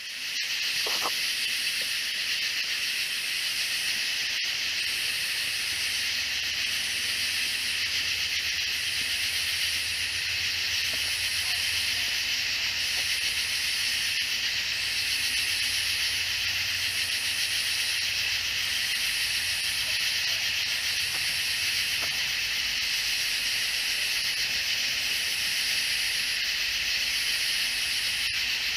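Night chorus of katydids and cicadas: a steady, dense high buzz, with a higher pulsing call layered on top that repeats about once a second.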